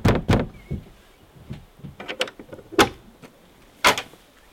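Fist knocking on a wooden cabin door, the last quick raps right at the start, then a few separate thumps and knocks as the door is opened, the loudest about four seconds in.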